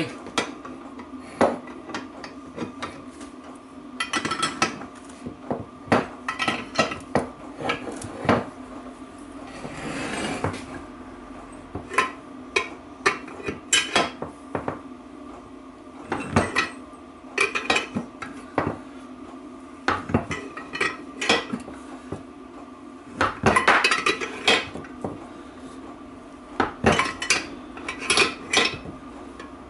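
Irregular metallic clinks and clicks of a spanner working the nut of a home-made threaded-rod bearing press, drawing a bearing race into a Land Rover Freelander 2 rear differential housing.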